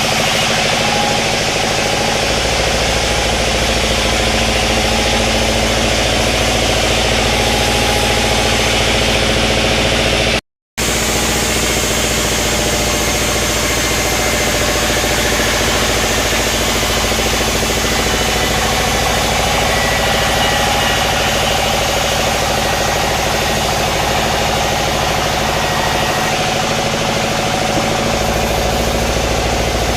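Sawmill machinery running steadily, a dense engine-like hum with a constant drone. It cuts out completely for a moment about ten seconds in.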